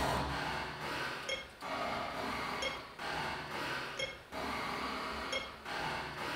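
Looped electronic soundscape: a hissy swell that cuts off sharply, followed each time by a short glassy clink, the pattern repeating about every second and a half.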